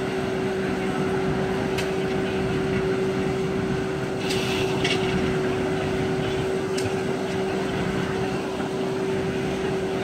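Circular sawmill belt-driven by a Baker steam traction engine, running steadily with a constant whine and drone and no change in pitch. A few sharp clicks come through it.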